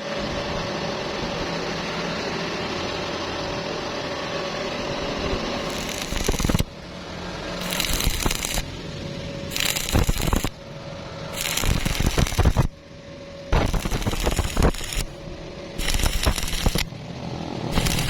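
Stick-welding arc crackling and sputtering, steady for about the first six seconds, then in a series of short bursts about a second long with quieter gaps between them.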